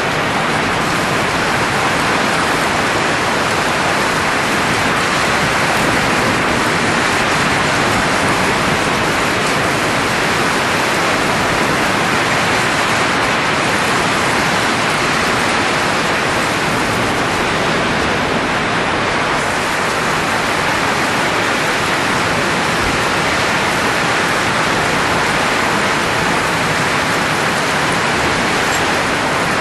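Steady rushing hiss of blowing air, even and unchanging throughout.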